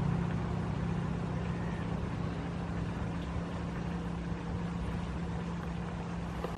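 Air Tractor AT-501 crop duster's Pratt & Whitney R-1340 radial engine and propeller droning steadily on a low spraying pass.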